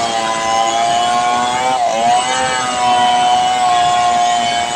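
Large home-assembled two-stroke chainsaw running at full throttle while ripping lengthwise along a big log. The engine note holds steady under the cutting load, dips briefly about two seconds in and picks back up.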